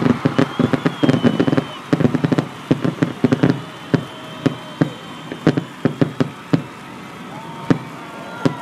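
Fireworks crackling: rapid sharp pops, dense at first and thinning to scattered single cracks toward the end.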